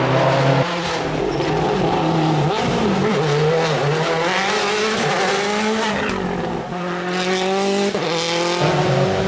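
World Rally Car's 1.6-litre turbocharged four-cylinder engine running hard, its pitch climbing and dropping several times with gear changes and throttle lifts.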